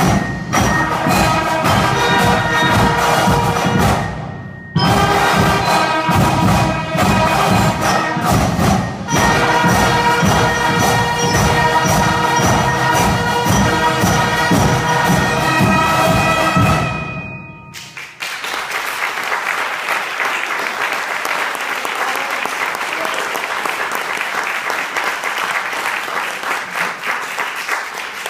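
A band with drums plays loudly, with two brief breaks, then stops abruptly about two-thirds of the way through. Audience applause follows to the end.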